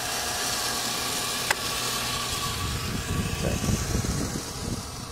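Water well pump running with a steady hum and hiss as water flows back into a drained fiberglass standard pressure tank to refill it.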